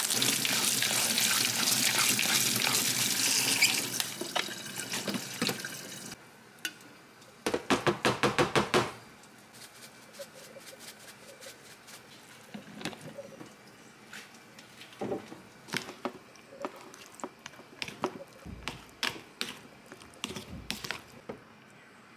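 Home kitchen cooking sounds: a loud steady hiss for about four seconds that stops suddenly, then a quick run of rhythmic strokes, about six a second, for a second and a half. After that come scattered light clicks and taps of utensils and dishes.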